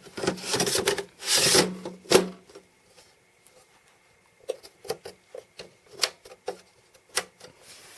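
Processor and memory tray of a 2011 Mac Pro sliding back into the case: a scraping rub for about two seconds that ends in a sharp click. Scattered light clicks and taps follow a couple of seconds later.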